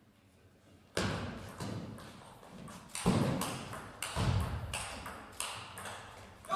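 Table tennis rally: the celluloid-type ball clicking off the rackets and table in quick succession, starting about a second in, with a few heavier thuds among the strokes.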